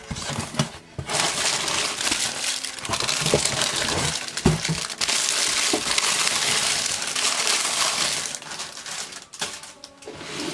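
Marker set packaging being opened: continuous crinkling and crackling of wrapping with scattered knocks, dying away near the end.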